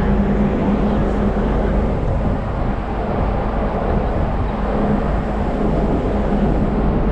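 Ferry's engines running with a steady low rumble and a constant hum as the boat turns away from the pier under way.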